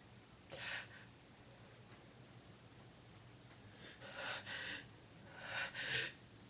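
A person's short, breathy gasps and sniffs, the sharp breaths of a building sneeze with a runny nose: one about half a second in, then two quick pairs near the middle and toward the end.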